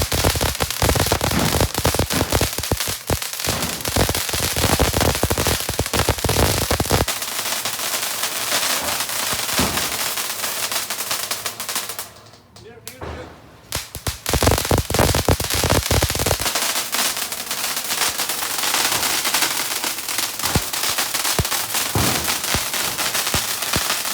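Fireworks going off: a dense run of rapid firecracker bangs and crackling. There is a short lull about halfway through, then the bangs resume.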